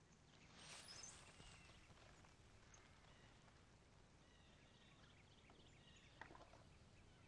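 Faint birdsong: short chirps and trills from several birds over quiet rural ambience. A brief rustle about a second in and a soft click a little after six seconds.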